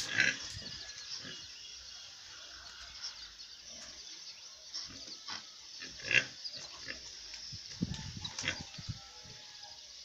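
Domestic pigs grunting in short, scattered grunts during mating, a boar mounted on a sow. The loudest grunt comes about six seconds in, with a cluster of grunts around eight to nine seconds.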